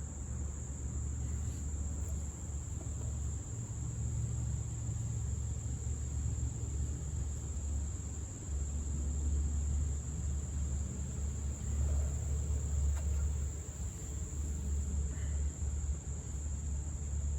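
Steady high-pitched trill of insects, unbroken throughout, over a low steady rumble.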